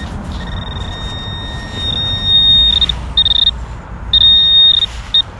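Handheld metal-detecting pinpointer probing in snow, sounding a high-pitched electronic tone. The tone grows louder and then breaks into several short loud bursts as the tip closes on a buried silver ring.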